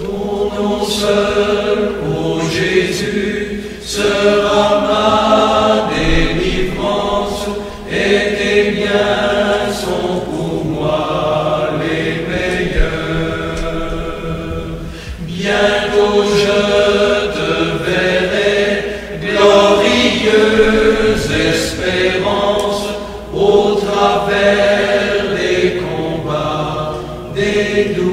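Group of voices singing a slow chant-like song in long held phrases, with a short breath between each phrase.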